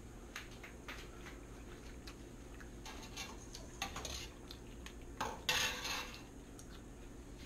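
Fork and plate clinking and scraping as pasta is eaten, in a string of short, light clicks. About five seconds in comes a louder scrape of just under a second.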